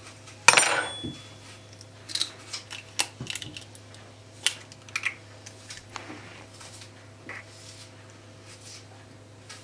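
An egg being cracked with a table knife and pulled apart by hand over a ceramic bowl: one sharp metallic clink with a brief ring about half a second in, then a scatter of small clicks and taps from the shell and the knife.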